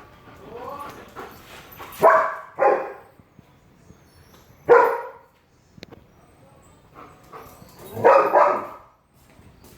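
Belgian Malinois barking: a brief rising whine, then two barks about two seconds in, a single bark near the middle and a quick pair near the end.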